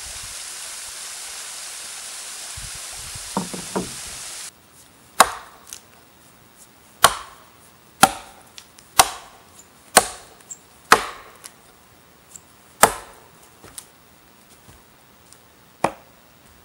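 A steady rushing hiss that cuts off suddenly about four and a half seconds in, followed by a hatchet chopping firewood: about eight sharp wooden strikes, mostly about a second apart, with a longer pause before the last one.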